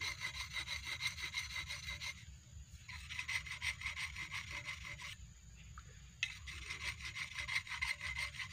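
The blade of a new, never-sharpened rubber-tapping knife being rubbed back and forth on a stone to sharpen it: quick, rhythmic scraping strokes, with two short pauses about two and five seconds in.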